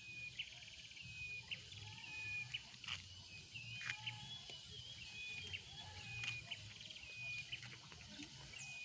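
Short, high chirping animal calls repeating about once a second, some with a quick rattle, over a faint low hum.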